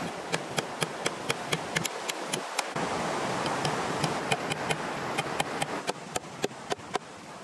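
Small axe chopping at a bamboo pole: rapid light strokes, about four a second, that stop near the end, over the steady rush of river water.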